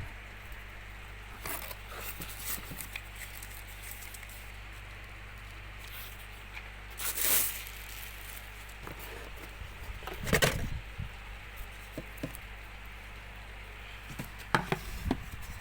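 Small motor of a mini table fan running with a steady hum and airy hiss. Scattered handling noises, clicks and rustles, come a couple of seconds in, around the middle and near the end.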